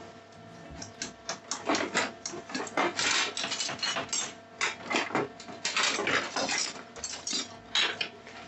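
Spoon scraping and knocking around a mixing bowl in quick, irregular strokes, stirring gingerbread biscuit mix.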